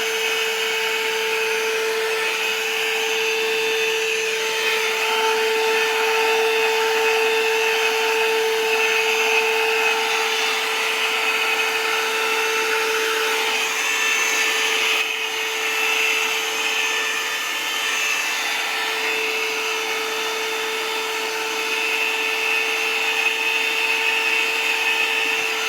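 Vacuum cleaner running with a steady motor whine, its nozzle worked over a dog's coat to suck up loose hair and dander, the hiss of the airflow shifting as it moves.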